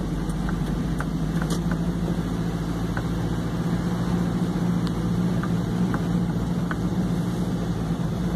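Vehicle engine running steadily while driving on a wet road, heard from inside the cabin as an even hum over road noise, with a few faint ticks.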